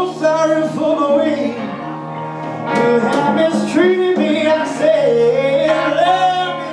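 Live blues-rock band playing, with a lead guitar line of bent, gliding notes over the drums and rhythm guitar.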